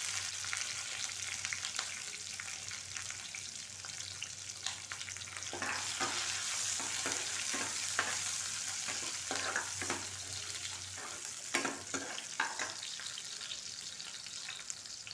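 Chopped onion and chilli sizzling in hot oil in a kadhai, a steady high hiss, with a spatula stirring and scraping the pan in a run of quick strokes through the middle.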